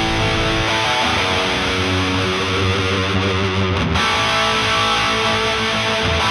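Background music led by guitar, a loud, steady track with chords shifting every few seconds.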